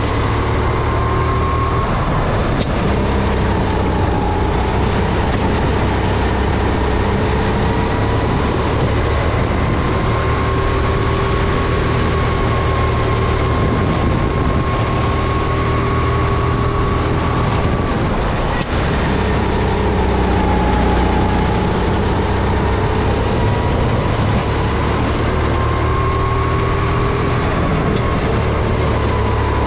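Sodi RT10 kart's Honda GX270 single-cylinder four-stroke engine running on track, its pitch climbing slowly along the straights and falling several times as the kart slows for corners, most sharply about two-thirds of the way through.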